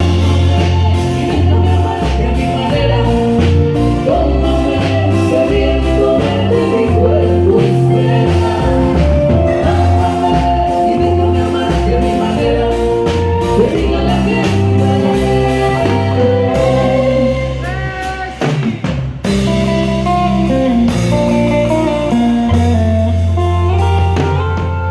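Live band playing a song at a sound check, with drum kit, bass and a melody over them.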